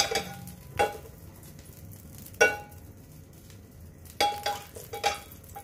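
Metal frying pan clanking against the gas stove's burner grate as it is gripped, lifted and tilted to spread the oil: about six sharp knocks, each with a short metallic ring.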